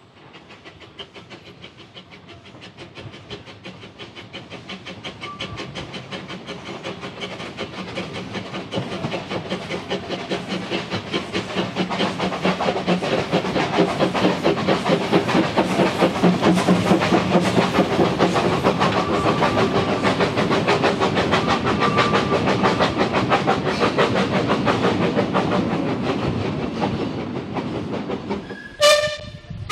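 A Hudswell Clarke 2 ft gauge steam locomotive and its coaches approach and pass with a rapid rhythmic beat. The sound swells to its loudest as the engine comes by, then fades as the coaches roll past. A short steam whistle sounds near the end.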